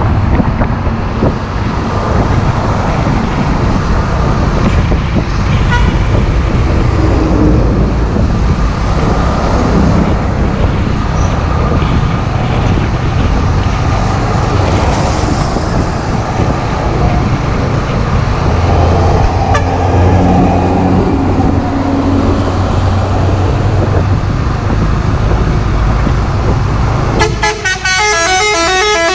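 Road traffic heard from a moving motorcycle: heavy trucks' engines running with tyre and wind noise. Near the end a vehicle horn sounds loudly for about two seconds in a rapid, repeating multi-note pattern.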